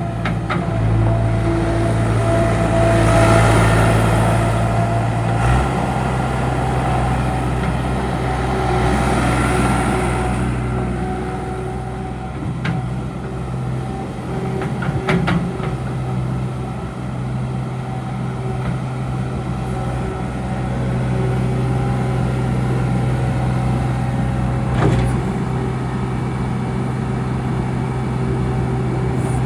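John Deere 250 skid steer loader's diesel engine running steadily, its pitch shifting about five seconds in, with a rushing hiss that swells twice in the first ten seconds and a few knocks later on.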